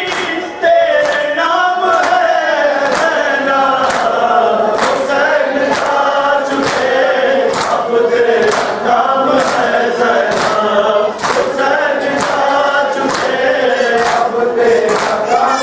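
A congregation of men chanting a noha, a Shia lament, in unison, over a steady beat of sharp slaps from hands striking chests in matam, in time with the chant.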